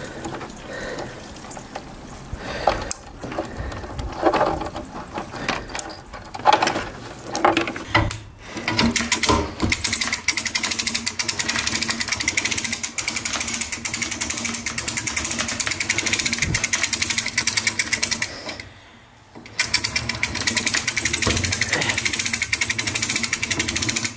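Boat winch reeling in its steel cable, with a rapid, steady clicking from its gear and ratchet. It starts about a third of the way in and pauses for about a second near the end. Before that come scattered knocks and thumps.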